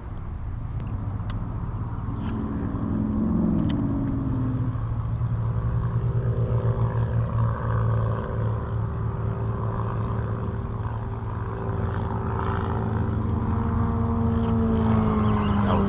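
A motor engine running steadily nearby, its pitch gliding down and then up again, with a few light clicks in the first few seconds.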